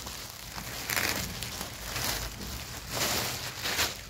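A clear plastic poly bag crinkles and rustles in several irregular bursts as folded jeans are pulled out of it.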